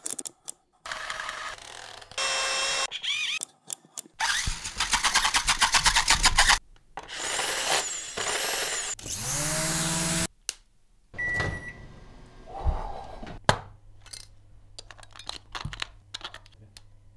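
A quick run of abruptly cut sounds from small electric toys driven from a bench power supply at raised voltage: toy motors buzzing and whining, the loudest a fast, dense buzz a few seconds in, and a motor spinning up with a rising whine near the middle. The second half is quieter, with clicks and knocks of plastic toys being handled.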